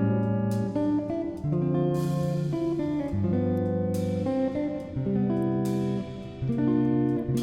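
Background music: guitar strumming chords that change every second or so.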